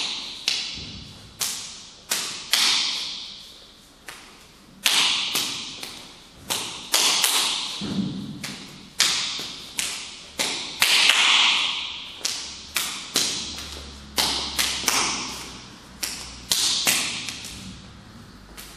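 Hands and forearms slapping against each other in a hubud trapping drill: a quick, irregular string of sharp slaps, parries and hammer-fist strikes on the arm, about two a second, each ringing briefly in the room.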